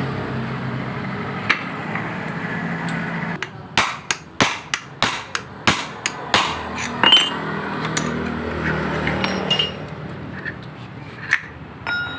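A run of about ten sharp metal hammer strikes, roughly three a second, between about four and seven seconds in, on the hub of a scooter CVT's rear driven pulley set on a wooden block; a few lighter metal clicks follow. This is the pulley whose bearing is blamed for the CVT's rough noise. A low steady hum runs underneath.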